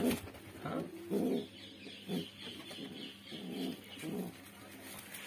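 Domestic pigeon brooding on its nest, giving short, low coos several times as a hand reaches under it: the defensive calls of a sitting bird guarding its nest, which pecks at the hand.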